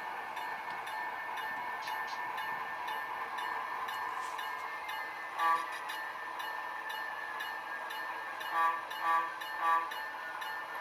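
Sound-equipped model diesel locomotive's onboard sound running steadily as it switches cars, with its horn giving one short toot about halfway through and then three short toots in quick succession near the end, the standard signal for backing up.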